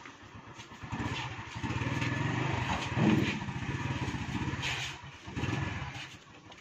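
Motorcycle engine running at low speed while it moves a flatbed cart. The revs rise briefly about three seconds in, dip near five seconds, pick up once more, and then fade.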